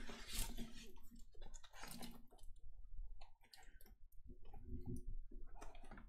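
Crinkling and crackling of a large diamond-painting canvas and its clear plastic cover film as it is handled and turned over, in irregular short clicks.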